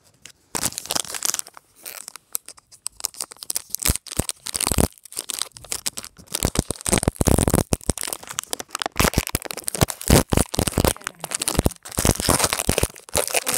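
Panini football trading card pack's wrapper being torn open and crinkled in the hands, an irregular run of crackles and rustles.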